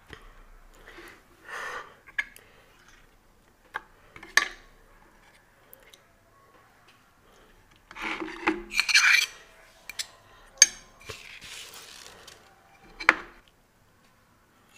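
Fingers handling and breaking crisp fried fritters and scooping food from serving bowls. Scattered clicks, knocks and crackly rustles are heard, busiest from about eight to nine and a half seconds in, with a few single sharp clicks.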